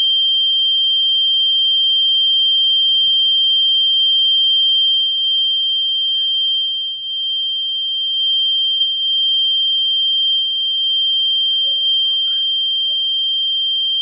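A homemade 555-timer security alarm circuit's buzzer sounding one continuous, steady, high-pitched tone.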